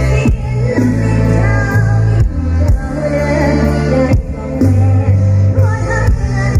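Live mor lam stage music through a loud PA: a singer's bending melody over an amplified band with heavy, sustained bass notes.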